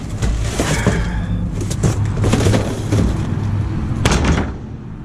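Debris being rummaged through in a dumpster: scattered knocks and crunches, the sharpest about two seconds in and again about four seconds in, over a steady low rumble.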